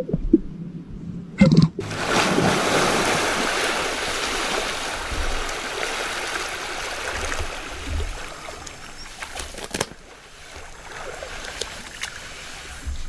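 Steady rushing and splashing water noise at a river's edge, starting about two seconds in and dropping off near ten seconds.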